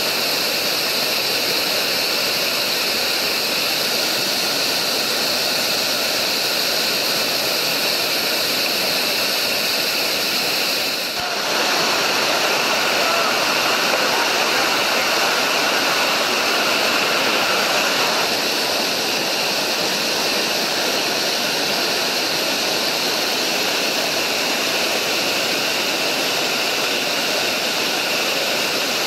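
Loud, steady rushing of whitewater pouring over a river falls, close by. The level dips briefly about eleven seconds in, then the rushing carries on.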